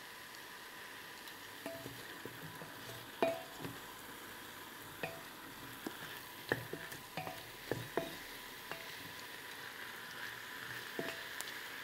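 Wooden spatula stirring mushrooms into masala in a stainless steel pressure cooker, with irregular scrapes and knocks against the pot over a faint steady frying sizzle.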